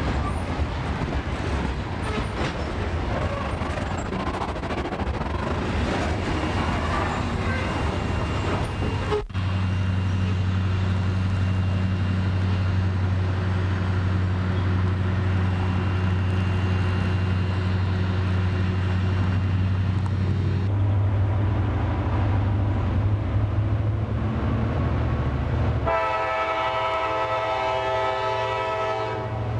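Loaded ballast hopper cars rolling past close by, with wheel and rail clatter and clicks. After a cut comes a steady low hum from the receding train. About 26 seconds in, the train's air horn blows, a chord of several pitched tones, as the train approaches a road grade crossing.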